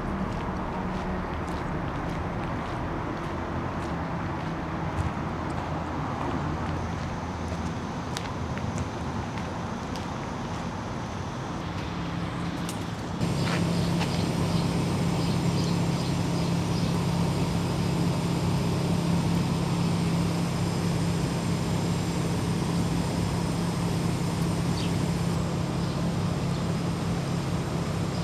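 Steady road traffic noise, a continuous rumble with a low hum, that gets louder and fuller about halfway through.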